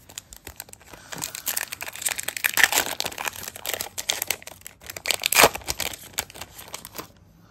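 Foil trading-card pack wrapper crinkling and tearing as it is pulled open by hand, a dense crackle that builds after about a second and peaks about five seconds in.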